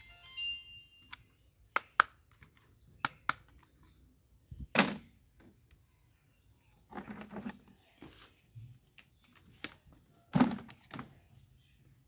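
Hard plastic toy guns being handled: two pairs of sharp plastic clicks, then hollow knocks and rattling as the toys are put into a plastic bucket of toy guns. The first second holds the tail of a light-up toy gun's electronic tune.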